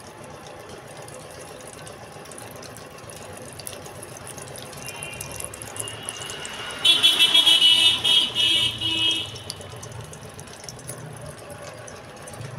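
A loud, high-pitched horn-like tone sounds for a couple of seconds a little after the middle, wavering in level, over a steady low hum.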